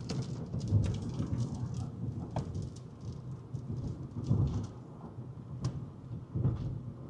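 Low, rumbling wind and road noise inside a moving car, swelling in gusts every second or two, with scattered sharp ticks striking the car.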